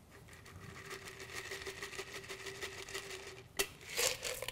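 A shaken chocolate martini being strained from a cocktail shaker into a glass: a steady, finely pattering trickle of liquid. About three and a half seconds in it ends with a sharp click and then a short rattle.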